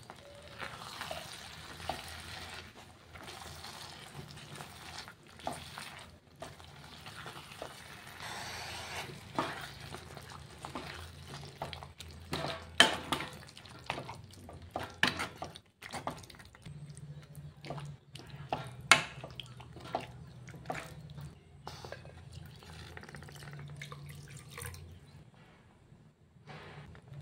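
A utensil stirring and mashing thick, wet cooked vegetables in a stone-coated pan: irregular squelching and scraping, with sharp clicks and knocks of the utensil on the pan, the loudest about 13 and 19 seconds in.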